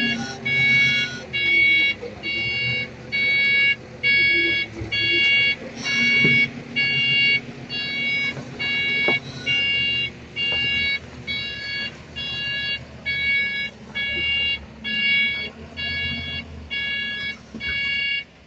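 Reversing alarm of a heavy earthmoving machine beeping steadily, a little over once a second, over the low running of a diesel engine.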